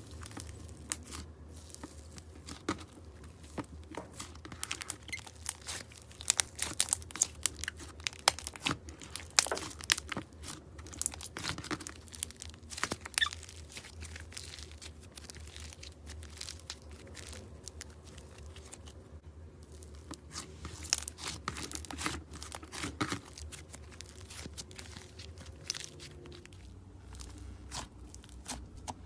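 Slime being squeezed and stretched by hand: dense runs of crackling pops and clicks, busiest about a quarter of the way in and again about two-thirds through, with a steady low hum underneath.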